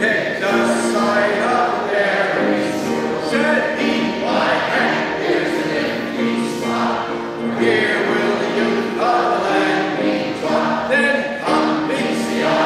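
Three men singing together from lyric sheets, accompanied by a grand piano.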